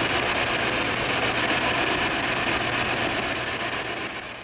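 Steady hiss of boosted recording noise with a faint low hum, fading slightly near the end. The uploader captions it as a spirit voice answering "yes".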